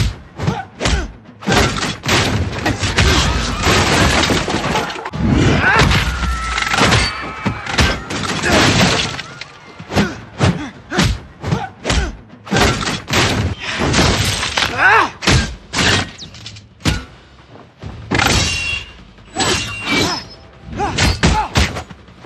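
Film fight audio chopped into rapid stutter edits: punch thuds and crashes repeated in quick runs, with snatches of voices and music.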